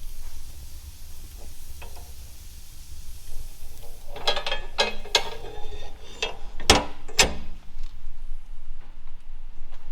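A quick run of rattling mechanical clicks, then two sharp knocks about half a second apart.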